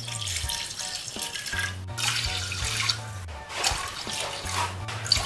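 Water being poured into a cooking pot in three pours of about a second each, splashing onto garlic cloves.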